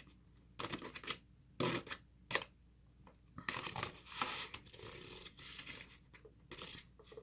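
Eating utensil scraping food from one plate onto another: a few sharp clicks and taps against the dish, then longer scraping strokes in the middle, then a few more taps.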